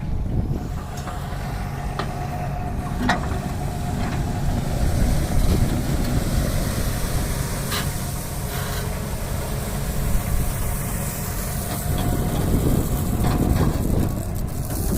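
Heavy diesel machinery running steadily, with a low rumble and a few sharp knocks.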